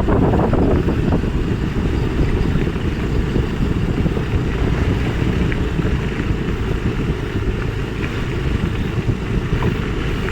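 Steady low rumbling noise, dense and choppy, without speech or music.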